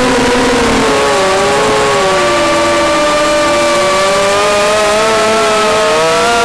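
RC model airplane's motor and propeller heard from the onboard camera, a steady whine over wind rush. Its pitch sinks over the first few seconds and climbs back toward the end as the throttle changes.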